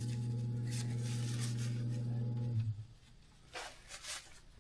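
Steady electric hum of a bench-top diamond-wheel sharpening grinder's motor, which cuts off abruptly a little past halfway as it is switched off. Faint rubbing of a rag on the metal scraper blade follows.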